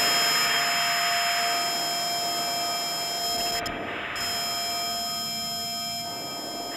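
Analog modular synthesizer drone: several steady, high sine-like tones held together over washes of filtered noise that swell and fade. The highest tones cut out briefly about halfway through, and the whole slowly gets quieter.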